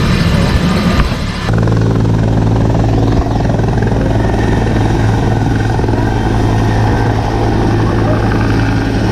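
Military helicopter running close by: a loud, steady low drone that changes abruptly about a second and a half in to a steadier, evenly pitched hum.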